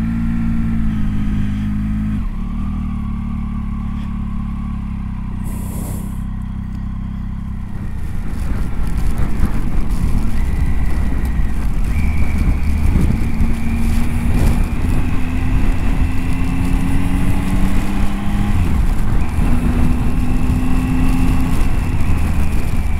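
Adventure motorcycle engine pulling along at road speed, its pitch rising as it accelerates, dropping at a gear change about three-quarters of the way through, then rising again. Wind rush on the microphone grows louder about a third of the way in as the bike speeds up.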